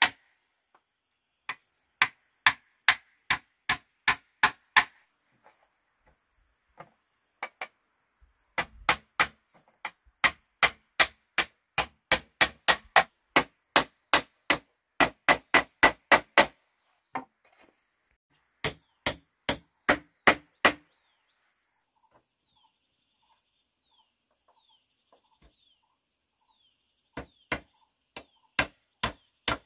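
Hammer blows on wood, in runs of about three sharp strikes a second. The hammering stops for several seconds in the middle, leaving only faint chirping, then starts again near the end.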